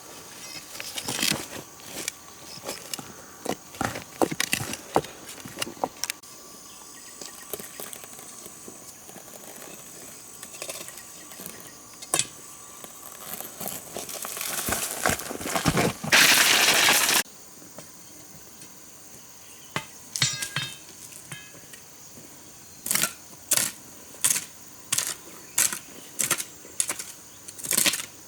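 Hard clicks and knocks, typical of stones being handled and knocked together, then a brief loud rush of noise about sixteen seconds in. Near the end comes a regular run of sharp strikes, a little more than one a second.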